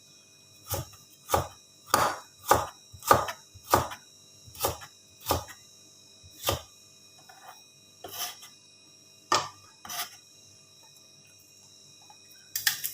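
Knife chopping ginger on a cutting board: about a dozen separate strikes, steady at roughly two a second at first, then slower and more spaced out after about six seconds.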